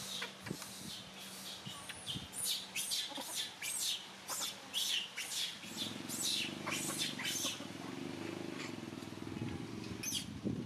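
Small birds chirping over and over in short, high-pitched chirps. A low steady rumble joins underneath from about the middle until near the end.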